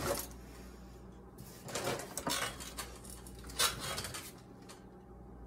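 Metal kitchen utensils clattering in an open drawer as a knife is picked out: a few short clinks and rattles, with a sharp click a little after the middle.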